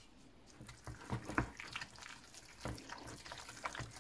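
Wooden spoon stirring a thick paste of melting cheese, flour and egg in a stainless steel pot, with faint wet squelching and a few irregular light knocks of the spoon against the pot.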